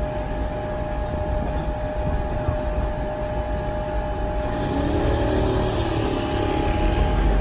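Volvo hybrid double-decker bus moving slowly up close: a steady low engine rumble with traffic noise, growing louder over the last few seconds as it draws near.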